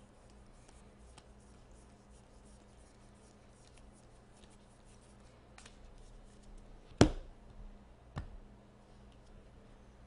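Baseball cards being flipped through by hand: faint scratchy slides and flicks of card stock. A sharp knock comes about seven seconds in and a lighter one a second later.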